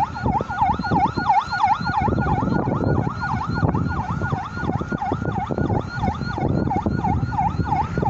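Electronic emergency siren in a fast yelp, its pitch swooping up and down about three to four times a second, with a low rumbling noise underneath.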